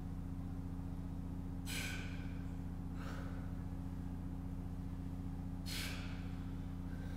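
A man breathing with effort: two sharp breaths, about two seconds in and near the end, and a softer one at about three seconds, over a steady low hum.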